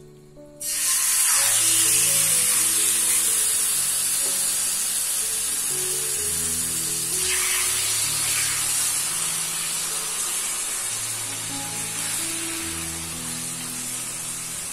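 Boneless chicken thigh pieces sizzling loudly as they hit hot oil on a well-heated tawa. The hiss starts suddenly about half a second in and slowly eases off, with background music of held notes beneath.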